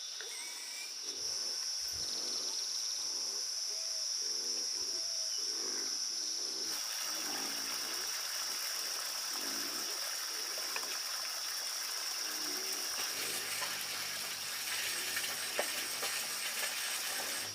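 Insects, likely crickets, trill steadily at a high pitch, over a low call repeated about once a second through the first half. From about seven seconds in a steady hiss like running water or wind rises over them.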